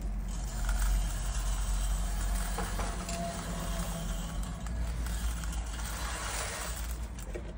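Mixed grain and corn poured from a plastic tub into a galvanized metal chicken feeder trough: a steady rattling rush of kernels on the metal, ending shortly before the close.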